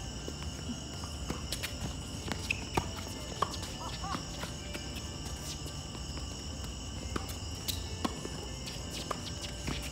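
Tennis balls struck by racquets during a doubles rally: sharp pops every second or two. Under them, a steady high drone of night insects.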